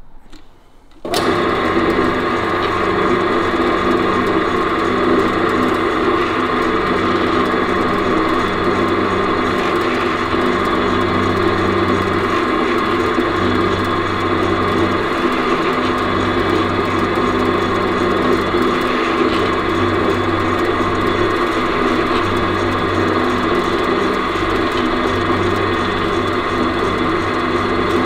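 Pillar drill switched on about a second in and running steadily, spinning a cork-tipped half-inch dowel that is pressed onto an aluminium panel with valve grinding paste to engine-turn swirl circles into it. Its low hum swells and drops every few seconds.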